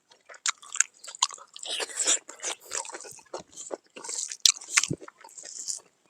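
A person chewing and biting into pork close to the microphone: irregular wet smacks and sharp clicks, several a second.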